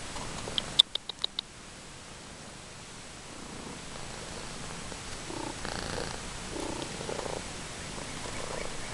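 Domestic cat purring close to the microphone, with a quick run of about five sharp clicks about a second in.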